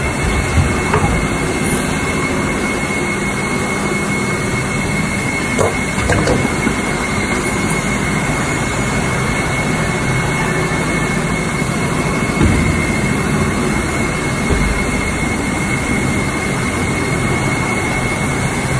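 Two-colour injection moulding machine running: a steady mechanical noise with a constant high whine, broken by a few short knocks, about a second in, around six seconds in, and again near twelve and fourteen seconds.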